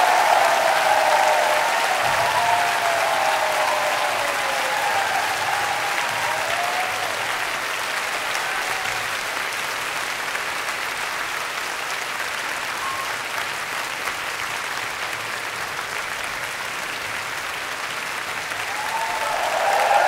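Live concert audience applauding, with a few voices whooping over the clapping in the first seconds. The applause slowly eases, then swells again near the end.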